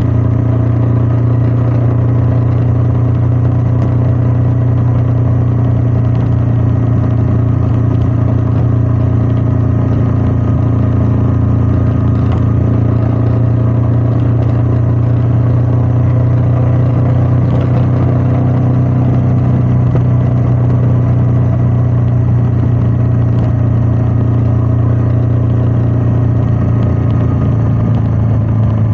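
Royal Enfield Meteor 350's single-cylinder engine running steadily while the bike is ridden, its pitch easing down slightly near the end.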